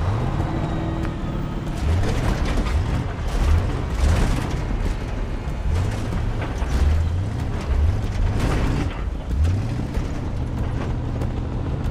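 Pickup truck engine revving hard again and again as the truck drives off-road across a rough field, with the body rattling and jolting over bumps.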